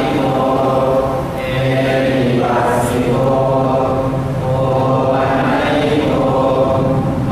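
Buddhist monks chanting in Pali in unison, a steady group recitation on a low held pitch with brief pauses for breath.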